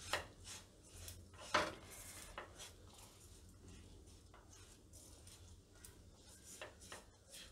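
Silicone spatula scraping and knocking against a nonstick wok while stirring a thick mashed green pigeon-pea filling: a few faint strokes, the clearest just at the start and about one and a half seconds in, over a low steady hum.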